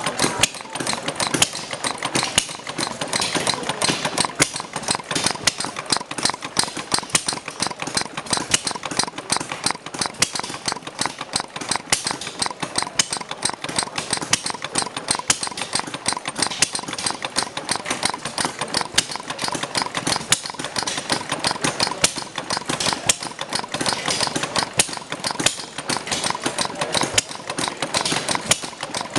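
Model of Henry Ford's Kitchen Sink Engine, a small single-cylinder gasoline engine, running steadily with a fast, even train of sharp firing strokes.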